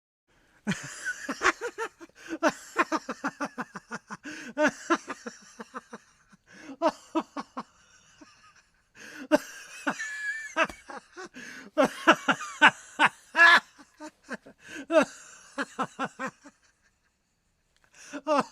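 Human laughter: runs of rapid 'ha-ha-ha' laughs with short pauses between them, stopping near the end and starting again just before it.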